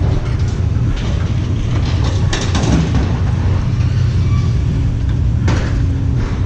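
A truck running with a steady low rumble, with two short rattles, one about two seconds in and one about five and a half seconds in.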